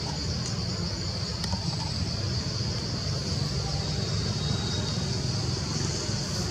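Steady high-pitched drone of an insect chorus, over a continuous low rumble.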